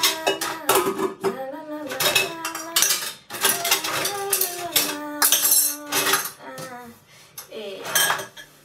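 Dishes and cutlery clinking and clattering as they are handled at a kitchen sink and dish rack, a string of sharp clinks throughout. A pitched, wavering melody runs underneath.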